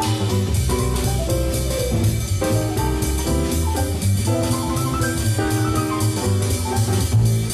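Jazz piano trio on a lo-fi 1970 live recording. An acoustic grand piano improvises a running right-hand line of eighth notes and triplets over left-hand chords, with double bass and drum-kit cymbals underneath.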